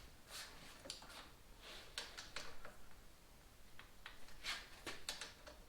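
Faint scattered clicks and scrapes of hand tools working on metal motorcycle parts, as stuck fasteners are tried.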